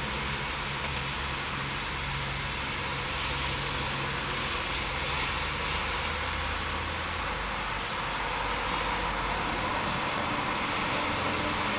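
Steady hiss of sleet falling outdoors, with a low steady hum underneath; the level swells slightly towards the end.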